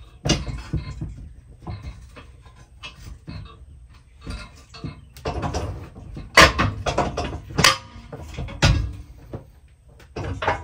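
Heavy steel quick-hitch parts being handled and fitted together by hand: scattered light knocks and rattles, then a few louder metal clunks from about six to nine seconds in.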